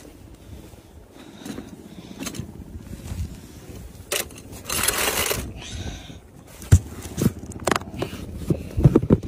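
Packaging handling noise: foam and plastic scraping, with a louder scraping rush about five seconds in, then a run of sharp knocks and clunks near the end as the foam carrying case is handled.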